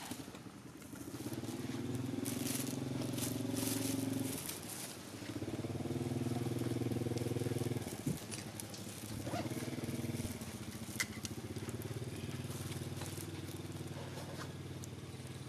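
An engine running steadily in long stretches, starting about a second in and breaking off briefly twice, with a few faint clicks over it.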